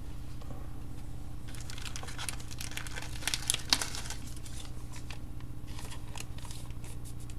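Foil trading-card pack being torn open and its wrapper crinkled, a dense crackling about two seconds in with a couple of sharper tears, then light scattered rustles as the cards are handled. A steady low hum sits underneath.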